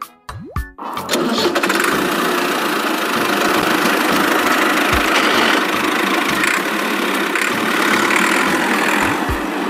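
Tractor engine sound effect: a brief rising whir, then the engine starts about a second in and runs steadily.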